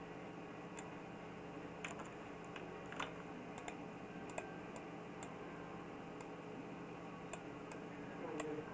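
Computer mouse clicking: about ten sharp, scattered clicks over a steady background hiss and a constant faint high whine.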